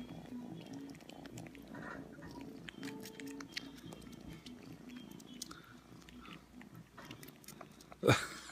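Cat sucking and chewing on a human earlobe right by the microphone: soft, wet smacking and many small clicks over a continuous low rumble, with a sudden loud burst near the end.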